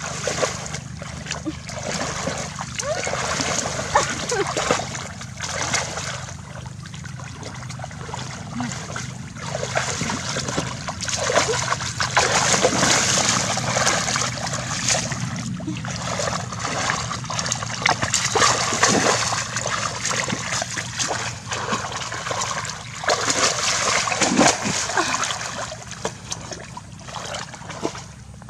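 Water splashing irregularly, with uneven bursts of splashes and sloshing throughout, as hands work through shallow water to catch fish.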